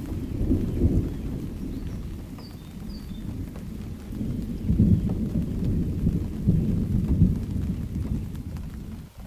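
Thunderstorm: low thunder rumbling in rolling waves over steady rain, swelling loudest about a second in, again around the middle and once more a couple of seconds later.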